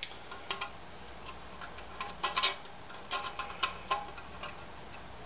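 Irregular metallic clicks and clinks of a hex key working the bolts that fasten a 3D printer's sub-bed plate to its y-axis carriage, some clicks coming in quick clusters.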